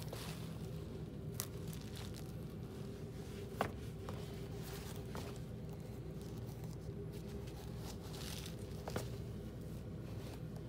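Sneakers being handled and shifted by hand: soft rustling of mesh fabric and a few light knocks, the sharpest about three and a half seconds in, over a steady low hum.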